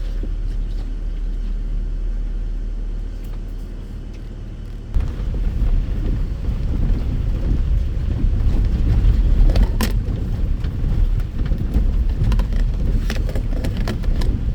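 Land Rover Discovery driving over a rough off-road track: a steady low rumble of engine and tyres that turns louder and rougher about five seconds in, with a few short knocks.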